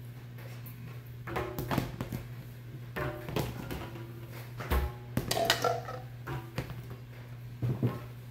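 Plastic game pieces being knocked and bounced during play of the Pigs on Trampoline board game: a string of irregular clacks and thunks, several with a short ringing tone.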